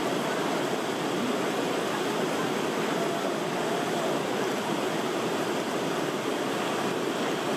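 Steady rush of whitewater: a shallow river rapid pouring over bedrock ledges.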